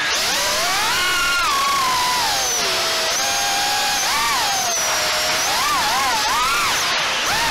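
Diatone GT R349 HD 3-inch FPV quadcopter's brushless motors and propellers whining in flight, the pitch climbing and dipping with the throttle and quickly wobbling up and down near the end.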